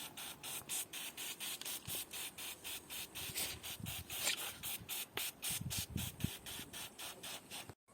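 Fabric upholstery being scrubbed with a cleaning product: a fast, regular hissing rub, about six or seven strokes a second, with a few faint knocks about six seconds in.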